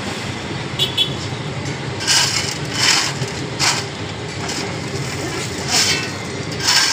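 Steel shovel scooping crushed stone on a truck bed and tipping it into wicker baskets: a series of short gritty scrapes and pours, one every second or so from about two seconds in, over a steady low rumble.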